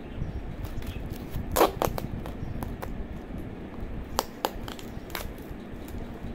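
Clear sticky tape and plastic wrapping being snipped with scissors and pulled off a plastic food container: a run of short, sharp crackles and snaps, the loudest about one and a half seconds in and a few more around four and five seconds in.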